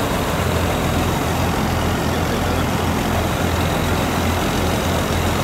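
Rice combine harvester's diesel engine running steadily close by, a continuous heavy engine sound with a strong low hum.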